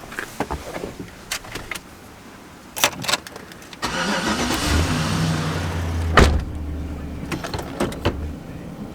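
A few clicks and knocks, then about four seconds in a vehicle engine is cranked by its starter and catches, running at a steady low idle. There is a sharp knock a couple of seconds after it starts.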